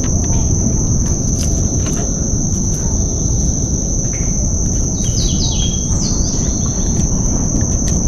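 A steady high-pitched insect drone from the mangroves over a low, even rumble, with a short run of bird chirps about five seconds in and a few light clicks.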